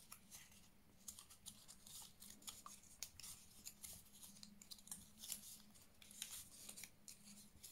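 Faint, irregular clicks and crackles of cardstock being folded along its scored lines and handled, over a faint steady low hum.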